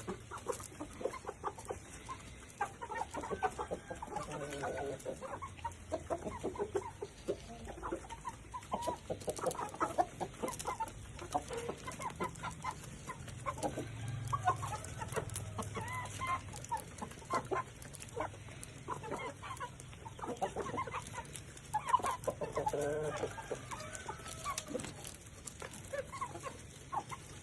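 Ayam Bangkok chickens clucking, with many short calls repeating one after another.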